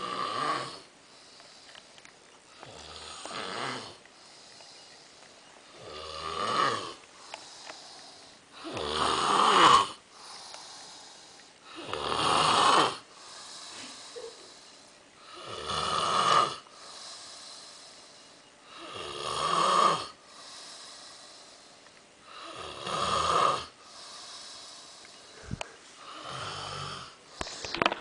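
A sleeping man snoring loudly: about nine long snores, one every three seconds or so, each with a pulsing low rattle, loudest around the middle.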